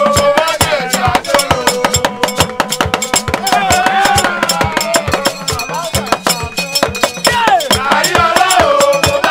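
Men singing a church chorus together over a fast, steady clanking of hand-held brass bells shaken in rhythm.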